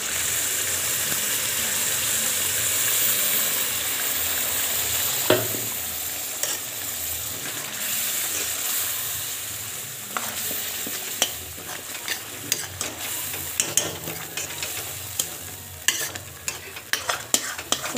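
Curry with coconut paste sizzling in a hot kadhai, the sizzle fading over the first several seconds. A spatula then stirs and scrapes the pan, with sharp clicks that come more often near the end.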